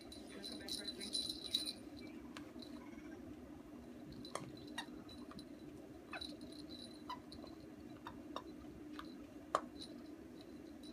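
Rottweiler puppy chewing and mouthing a plush toy: scattered small sharp clicks and rattles, busiest about a second in, over a faint steady hum.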